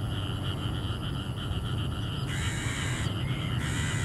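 Insects trilling steadily in a high, pulsing band, with two louder, harsher buzzes of under a second each, about halfway through and near the end, over a low rumble.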